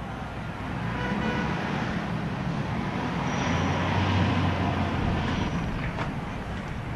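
City street traffic noise, with a vehicle passing that swells to its loudest about four seconds in and then fades.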